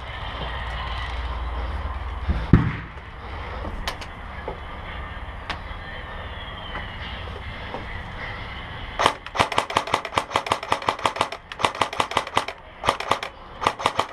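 Airsoft guns firing in rapid strings of sharp snapping shots with short breaks, starting about nine seconds in. Before that there is low rumbling noise with a single knock.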